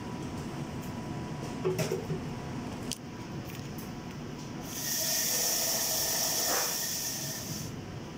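A steady hiss for about three seconds, starting about five seconds in, with a couple of sharp clicks before it.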